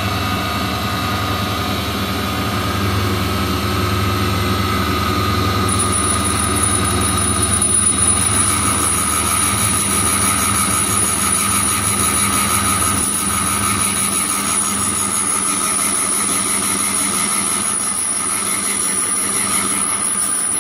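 Valve refacing machine running: its electric motor and belt-driven chuck spin a Lycoming O-320 intake valve against the grinding wheel to re-bevel the valve face at 30 degrees. A steady hum, joined about six seconds in by a high thin whine that holds to the end.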